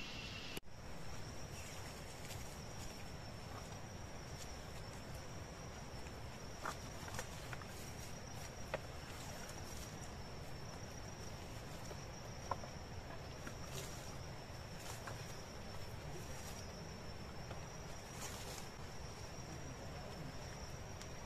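A steady high-pitched insect call, one unbroken tone, over quiet forest ambience. A few sharp clicks and knocks of sticks being handled come through it.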